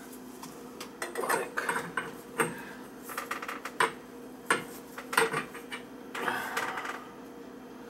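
Irregular light knocks, clicks and scrapes of gloved hands handling copper water pipe and fittings among wooden floor joists, over a steady low hum.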